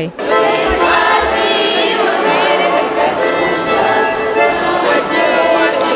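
A group of voices singing a wartime song together with musical accompaniment.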